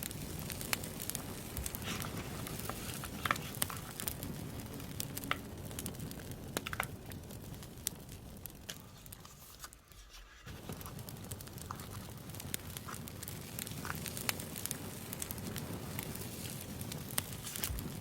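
Campfire crackling: irregular sharp pops and snaps over a steady low hiss of flame, dipping briefly about ten seconds in.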